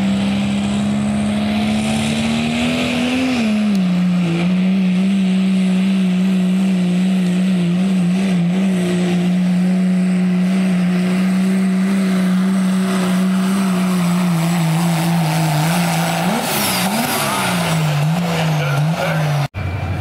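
Turbocharged Cummins diesel in a second-generation Dodge Ram pulling truck, running at full throttle under load as it drags a pulling sled. The revs climb, drop sharply about three and a half seconds in and then hold steady. Near the end they waver twice and fall away, and the sound cuts off suddenly.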